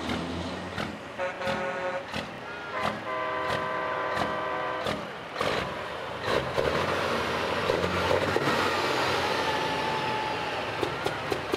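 Semi-truck air horns blown twice, the second blast longer, then a big-rig diesel engine grows loud as the truck passes close by with smoke pouring from its stacks.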